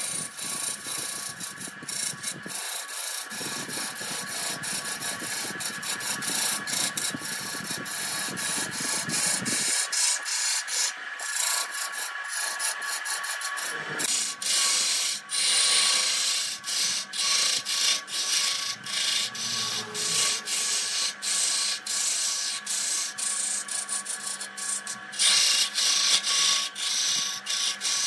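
Wood lathe spinning an areca tree stump workpiece while a hand-held turning tool cuts it. The cut makes a steady scraping hiss with many irregular ticks from shavings flying off, over a steady whine from the lathe motor, and gets louder about halfway through and again near the end.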